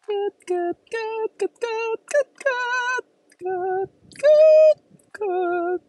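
A voice singing a short melody in separate, fairly high held notes, several with vibrato; the loudest note comes about four seconds in.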